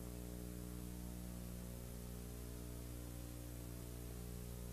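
Steady electrical hum with a stack of overtones under a light hiss.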